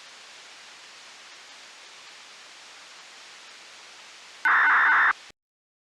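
Radio receiver hiss from the idle municipal disaster-prevention radio channel, just after its chime has finished. About four and a half seconds in, a loud burst of noise lasts about half a second, then the audio cuts off to silence as the transmission ends.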